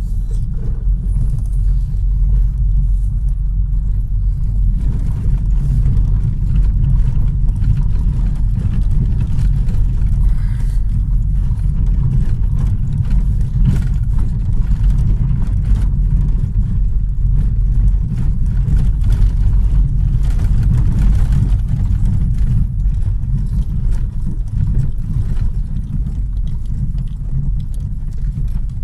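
Car driving on a gravel and dirt road, heard from inside the cabin: a steady low rumble of engine and tyres, with faint scattered clicks.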